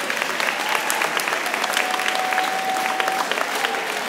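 Audience applauding in a school gym, many hands clapping at a steady level. A thin steady tone sounds through it for about a second and a half in the middle.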